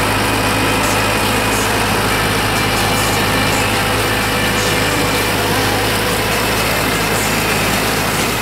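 Renault tractor's engine running steadily under load while pulling a Claas Sprint 440 S forage wagon, its pickup gathering and loading cut rye, with an even low drone.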